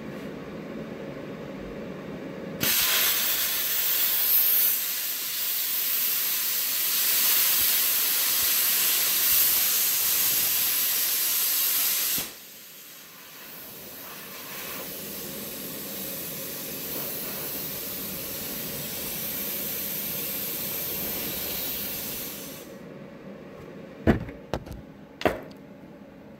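Everlast PowerPlasma 82i plasma cutter arc piercing 3/4-inch steel plate at about 80 amps and 70 psi of air: a loud hiss that starts abruptly about two and a half seconds in, drops to a quieter steady hiss around halfway, and stops about three-quarters of the way through. A few sharp knocks follow near the end.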